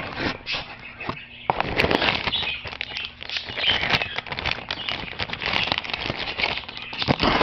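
Plastic packaging crinkling and crackling as it is worked open by hand, a continuous run of quick sharp crinkles.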